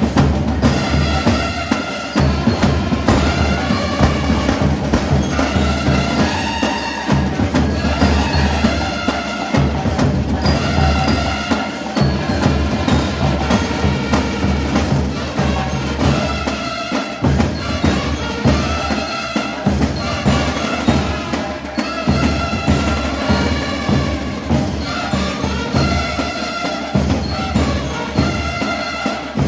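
Marching band playing a march: bass drums, snare drum and crash cymbals beating a steady rhythm under held brass horn notes.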